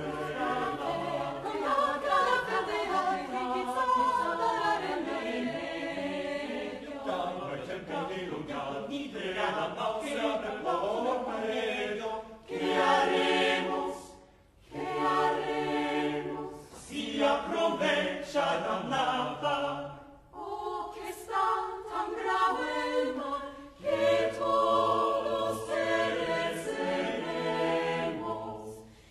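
Mixed chamber choir singing a cappella, several voice parts overlapping, in phrases broken by a few brief pauses; low men's voices carry some passages under the women's.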